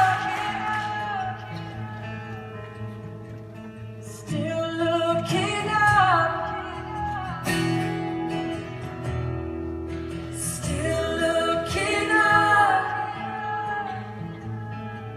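Live acoustic band playing: guitar with sung vocals holding long, gliding notes, and no clear words.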